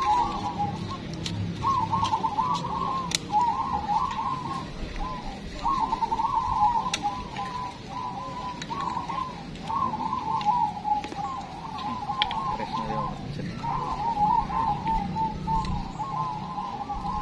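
Many caged zebra doves (perkutut) cooing together, their rolling, staccato coos overlapping in phrases of a few seconds each. A few sharp ticks cut through now and then.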